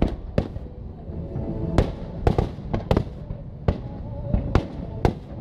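Aerial firework shells bursting, an irregular series of sharp bangs, about ten in five seconds, with music playing beneath.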